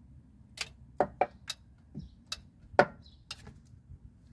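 Hand tools clicking and tapping against metal under the car, about ten sharp clicks at irregular intervals.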